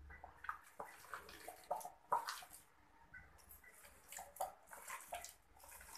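Faint small water splashes and wet squelches: a hand dipping into a tub of water and kneading soft, stringy ripe palm fruit pulp.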